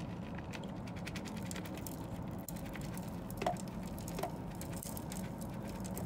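Compost soil pouring from a tipped plastic bucket into a plant pot: a crackling patter of falling grains, with two light knocks a little past halfway.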